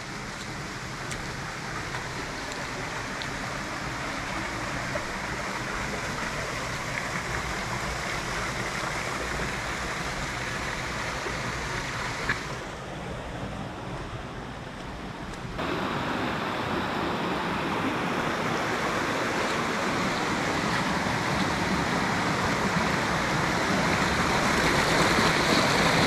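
Steady rushing of a stream flowing over rocks, growing louder toward the end; it drops to a quieter, duller sound for about three seconds midway.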